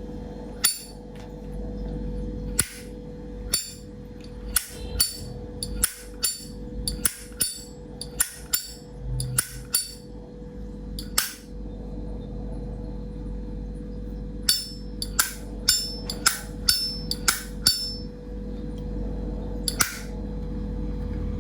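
Vintage 1957 Zippo lighter being flicked open and snapped shut again and again: about twenty sharp metallic clicks with a brief ring, in clusters with short pauses.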